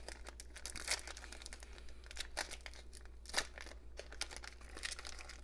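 Foil wrapper of a 2007 Topps football card pack crinkling and tearing as fingers peel it open: a string of irregular crackles.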